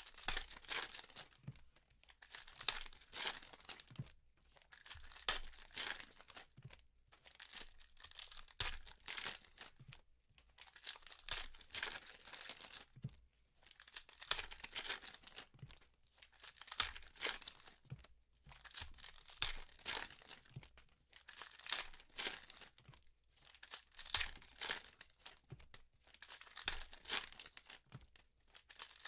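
Trading card packs torn open by hand, their foil wrappers tearing and crinkling in repeated bursts, with short pauses every few seconds.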